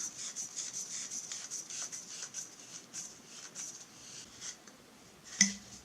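Regulator body of a Huben K1 PCP air rifle being unscrewed by hand from its emptied air cylinder: a run of faint, quick rasping strokes as the metal threads turn, fading out after about four seconds. One sharp click near the end.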